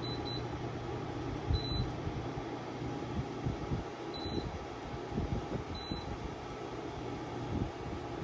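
DuraComfort 8000 BTU portable air conditioner running, a steady fan-and-compressor hum with a few low thumps.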